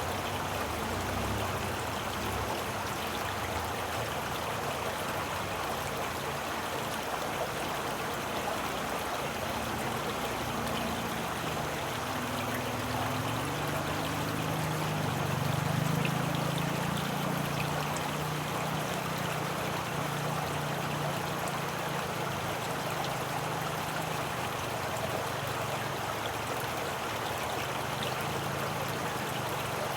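Running water of a stream, a steady, even rush. A low hum swells and fades away in the middle.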